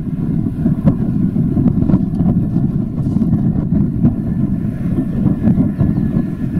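Low rumble of an Ilyushin Il-76TD-90VD's four PS-90A-76 turbofan engines on landing approach, mixed with wind buffeting the microphone. A faint high whine sits over it near the end.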